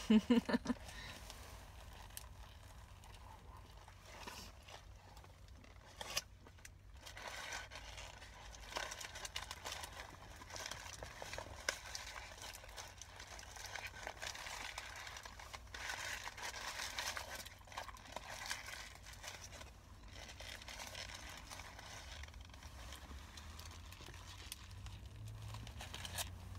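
Paper sandwich wrapper crinkling and rustling as it is handled, with chewing and bites of the sandwich.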